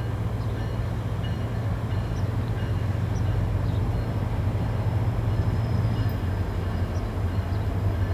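Distant GE Evolution-series (GEVO) diesel locomotive leading an approaching freight train, its engine giving a steady low drone that grows slightly louder as the train nears.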